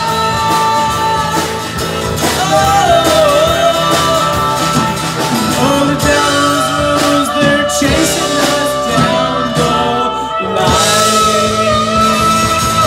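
Live rock band playing: drum kit, electric bass and acoustic guitar, with a harmonica playing a wavering, bending lead line over them.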